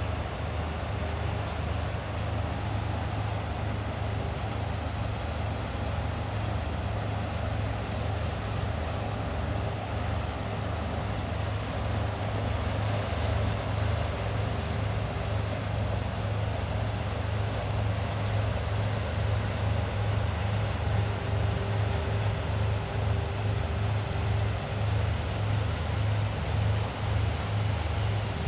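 Diesel engines of a push-tow boat on the river, a low steady drone with a faint hum, slowly growing louder as the convoy approaches.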